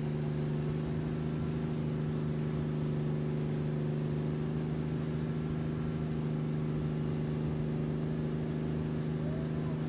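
Wakeboard tow boat's engine running at a steady cruising speed, a constant even hum that holds the same pitch throughout.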